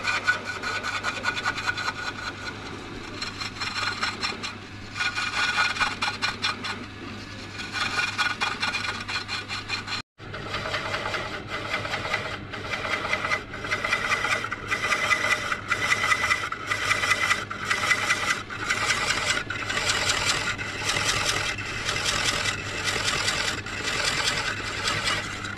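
A cutting tool scraping and shaving dar wood in repeated back-and-forth strokes as a wooden vessel is shaped. Just after the middle the sound breaks off for a moment, then goes on as regular strokes, about three every two seconds.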